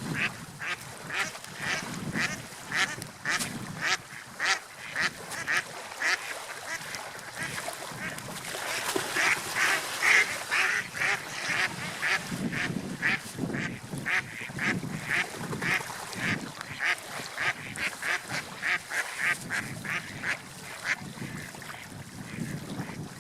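An animal calling in a long, rapid series of short calls, about two to three a second.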